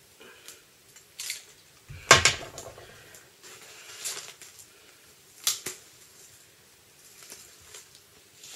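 Hands unpacking a boxed album set: rustling packaging with several sharp clicks and knocks, the loudest a knock with a dull thud about two seconds in and another sharp click about five and a half seconds in.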